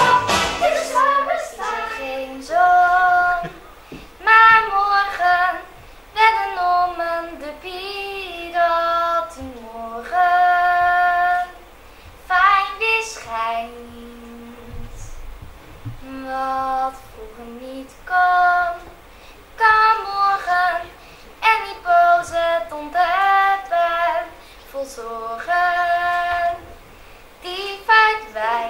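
A girl singing solo into a microphone, unaccompanied, in slow phrases with long held notes and short pauses between them.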